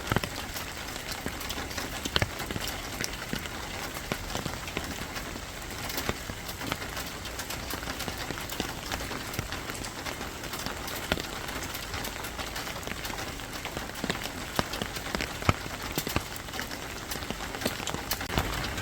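Steady rain falling, a continuous hiss dotted with sharp taps of individual drops hitting a surface.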